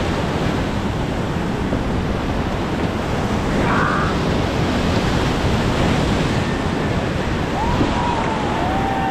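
Whitewater of Lava Falls Rapid on the Colorado River: a steady, loud rush of churning water close to the microphone. A long high call, rising and then held, comes near the end.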